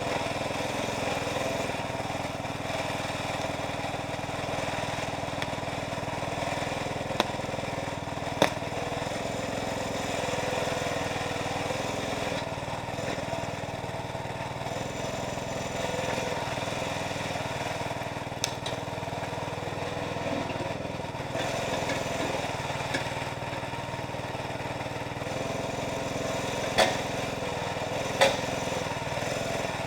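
Engine of a Jansen MB 300 towable backhoe running steadily, with a few sharp knocks now and then.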